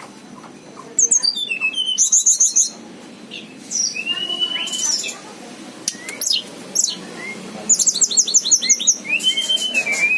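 Hill blue flycatcher (tledekan gunung) singing vigorously. It gives fast runs of high, falling notes about a second in and again near the end, between clear whistled phrases.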